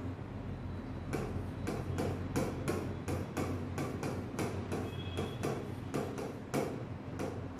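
Quick, irregular taps and clicks of writing, about four a second, as numbers are written out while the sum is worked. A faint steady hum sits underneath.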